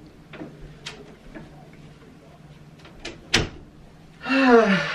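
A bedroom door shut with one sharp bang about three seconds in, after a few lighter clicks. Near the end a man's voice gives a short vocal sound that falls in pitch.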